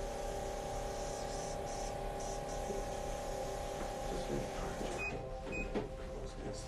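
Small electric vacuum pump of a PRP injection device running with a steady, even hum, with a few small clicks about five seconds in.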